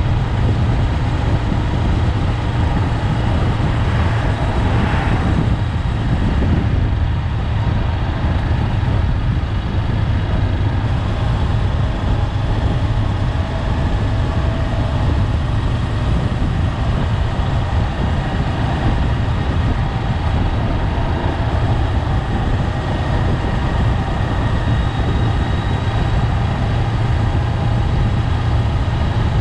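Honda 400X parallel-twin engine running steadily under way, with a low rumble under steady wind and road noise. A short swell of hiss comes about four seconds in.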